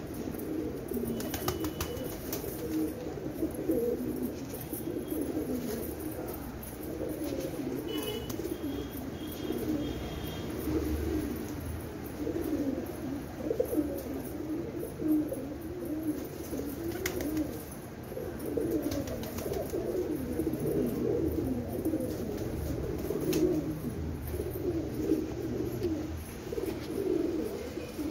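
A flock of domestic pigeons cooing continuously, many low, wavering coos overlapping.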